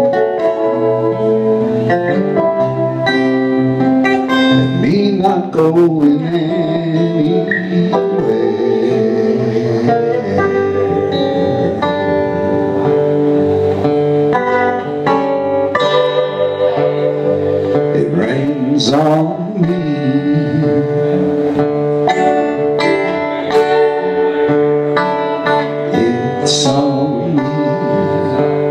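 Two acoustic guitars played together live, picking an instrumental passage, with a note that wavers and glides in pitch about two-thirds of the way through.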